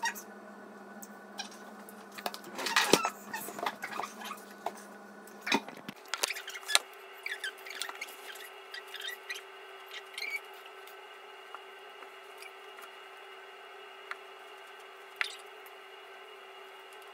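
Scattered rustles and soft scratchy clicks of hands gathering hair and tying it into a ponytail, busiest a few seconds in, over a faint steady hum.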